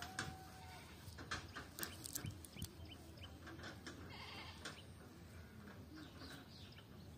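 Faint rustling and small clicks of a cast net being handled on grass, with an animal calling in the background.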